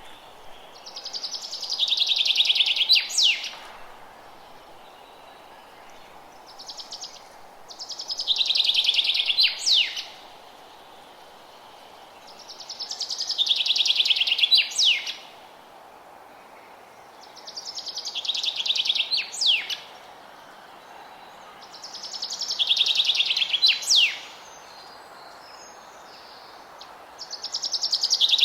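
A single songbird repeating the same song about every five seconds. Each song is a fast trill of about two seconds that ends in a couple of quick sweeping notes, over a faint steady background noise.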